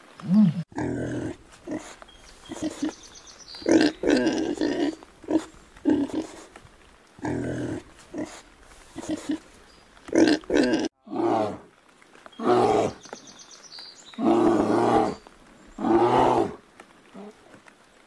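Animal calls and grunts: a string of short calls, each under a second, with two longer calls near the end.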